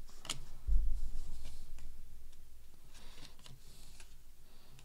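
Baseball cards being handled and flipped through by hand, with faint clicks and rustles of card stock. A dull low thud comes about a second in, its rumble dying away over the next few seconds.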